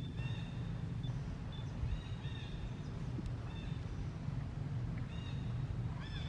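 Baby macaque giving short, high squeaky calls again and again, each call briefly rising and falling in pitch, over a steady low background rumble.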